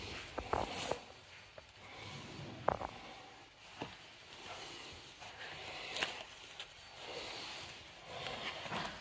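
Soft rustling of a football shirt's fabric being handled and turned over by hand, with a few sharp ticks and taps scattered through.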